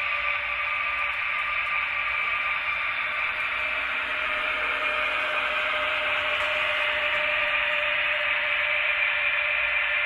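Digital sound decoder of a Märklin H0 class 103 electric locomotive model playing its running sound through the model's small loudspeaker: an even hiss with one steady tone beneath it.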